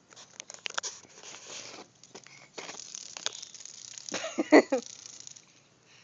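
A dog scuffles and scratches on concrete, its claws clicking as it paws and rolls beside a cicada. There is a short, louder burst about four seconds in.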